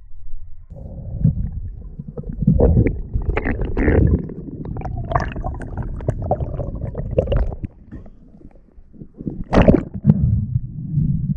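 Muffled underwater gurgling and rumbling of water moving around a diver's camera, starting just under a second in, with scattered clicks and one sharp knock near the end.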